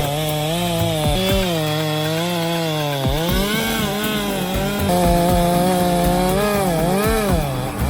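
Chainsaw running at high revs while cutting wood, its pitch wavering and sagging briefly about three seconds in and again near the end as the chain loads in the cut, then picking back up.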